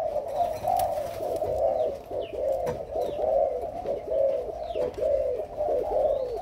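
Spotted doves cooing: a steady run of short, repeated low coos, several of them overlapping.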